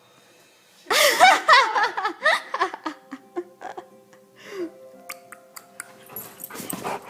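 A dog making weird wavering, howl-like vocal noises that start about a second in and last roughly two seconds, followed by faint music with a few light clicks.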